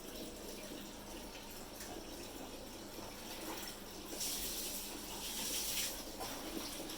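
Water running and splashing steadily, growing louder and more hissing from about four seconds in until about six seconds in.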